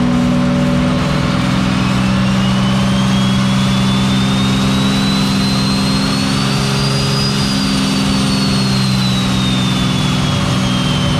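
Turbocharged Ecotec V6 running under load, most likely a pull on the dyno. A high whine climbs steadily for about seven seconds, then falls away, over a steady low drone.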